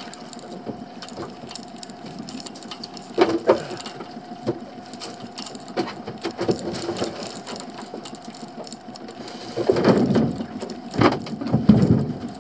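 Wooden pallet knocking and scraping against the boat's gunwale and the dinghy as it is hauled over the side and set down in the dinghy, with the loudest clatter from about ten seconds in. A faint steady hum runs underneath.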